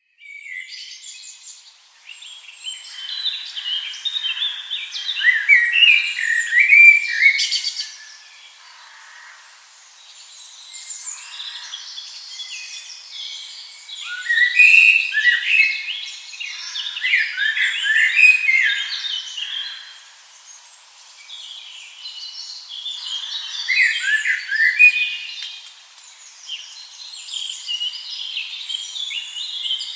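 Birds chirping and twittering, many short calls overlapping. The chorus swells into three louder bouts and dies back to scattered chirps between them.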